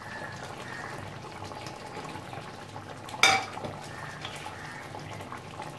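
Fish curry simmering in a wok with a steady bubbling hiss, and a spatula knocking once against the pan about three seconds in.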